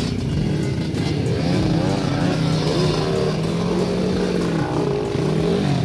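Dirt bike engines running, their pitch wavering up and down with the throttle.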